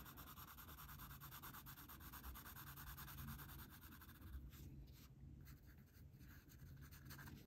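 Faint scratching of a pencil shading on drawing paper, which stops about halfway through.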